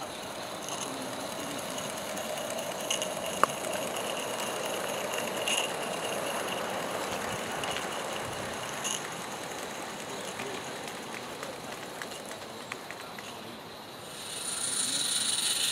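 Small live-steam garden-railway locomotive running by with a rake of slate wagons: a steady mix of steam hiss and wheels rolling on the track, with a sharp click about three and a half seconds in. A louder high hiss swells in near the end.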